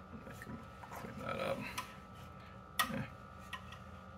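Light clicks and taps of things handled on a countertop, with one sharper click about three seconds in, over a faint steady hum.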